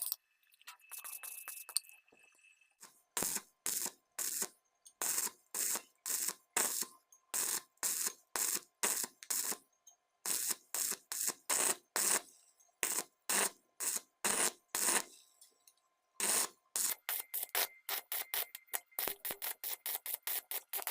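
Welding arc crackling in short repeated bursts, about two a second, as the hole is filled with a series of quick tacks.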